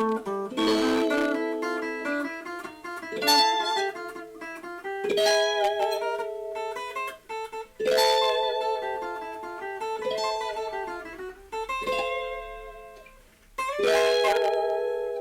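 Solo guitar playing a Spanish-style blues in A minor: sharply struck chords and plucked single-note runs, each left to ring and fade. Near the end the sound dies away almost completely before a loud chord is struck.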